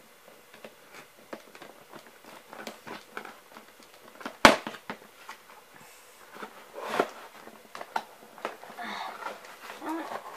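Scattered clicks and rustles of a doll's toy packaging being handled and worked with scissors, with one sharp snap about four and a half seconds in.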